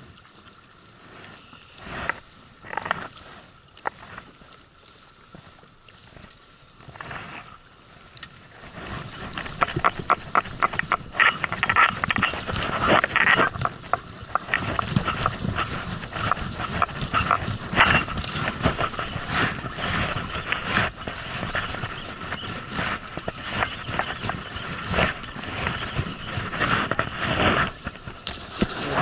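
Fishing reel cranked in quick jerks while jigging, giving a dense run of fine clicks and rattling that sets in about a third of the way through, after a few scattered knocks.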